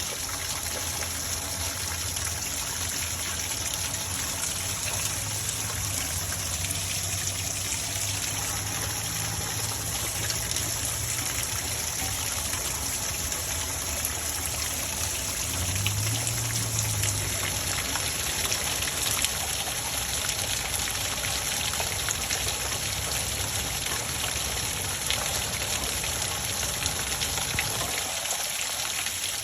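Steady running, trickling water, with a low hum underneath.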